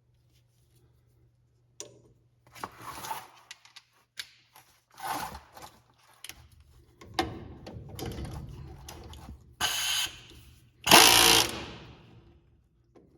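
Intermittent short bursts of a small handheld power tool running, the longest a few seconds in the middle and the loudest near the end, with clatter of tools being handled between them.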